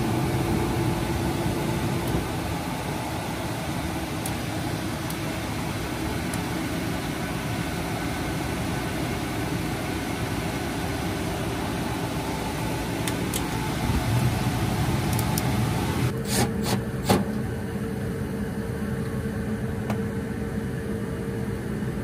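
Gas furnace running: the inducer draft motor and the burners make a steady mechanical hum. The inducer has a slight racket, which the technician thinks comes from a little slop in the wheel on its hub or the wheel sitting too close to the housing. About sixteen seconds in there are a few sharp clicks, and a new steady tone joins the hum.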